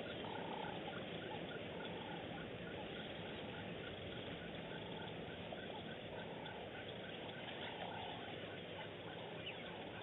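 Wild animal calls: a short high note repeated about three times a second over a steady hiss, with a longer, lower call every few seconds.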